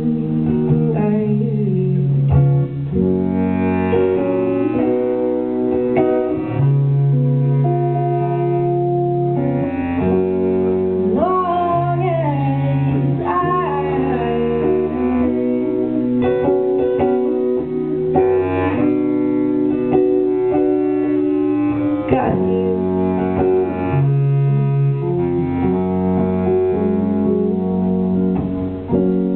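Live band music in an instrumental passage: a bass clarinet plays long held low notes and a melody over strummed electric guitar.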